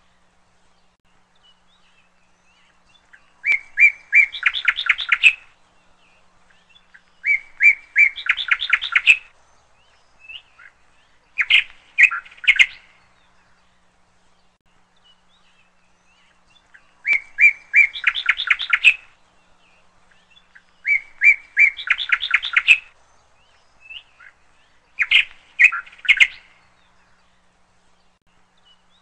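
Bird song: about six short phrases, each a few chirps running into a fast trill, repeated every few seconds with pauses between them.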